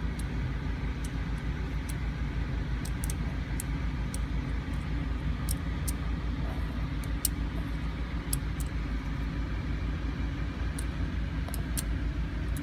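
Steel hand scaler scraping hard tartar off a dog's teeth: scattered faint, sharp ticks and clicks. Under it runs a steady low machine rumble, the loudest sound throughout.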